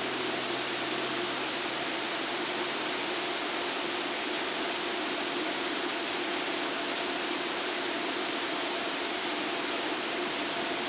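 Steady hiss with a faint, even hum: the Extra 300L's cockpit noise of engine and airflow in level cruise, heard through the headset intercom feed.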